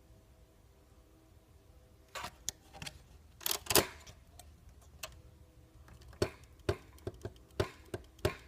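Metal clicks and clacks from a Remington manual typewriter's mechanism being worked by hand. A few irregular knocks begin about two seconds in, the loudest just after the midpoint, then sharp clicks come about twice a second near the end.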